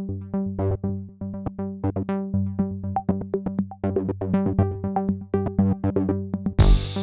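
Electronic music: a quick run of short synthesizer notes over a held bass, with the full beat coming in loudly near the end.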